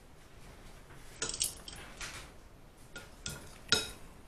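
Cutlery clinking against a dish several times in short sharp taps, the loudest clink near the end.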